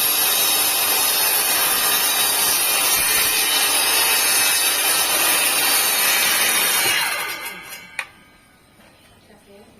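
INGCO TS15007 table saw running loud and steady, then switched off, its motor and blade winding down in a falling pitch about seven seconds in. A single sharp click follows about a second later.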